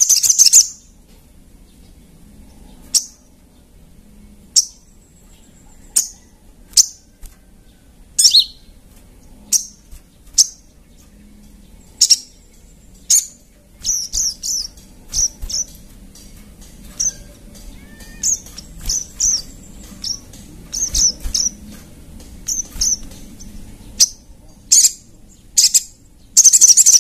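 Little spiderhunter (sogon) calling: sharp, high chirps, single and a second or two apart at first, coming quicker and often in pairs from about halfway, with a loud rapid run of notes near the end.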